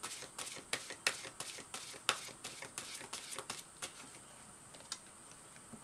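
Oracle card deck being shuffled by hand: a quick run of light card flicks and snaps that thins out and stops about four seconds in, with a couple of stray taps after.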